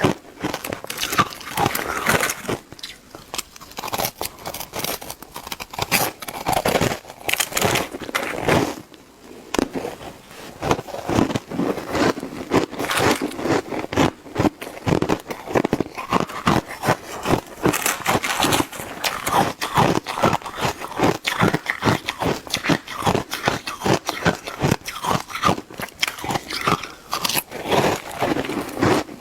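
Shaved ice being bitten and chewed close to the microphone: a dense, fast run of crunching and crackling, with brief lulls a few seconds in and around nine seconds.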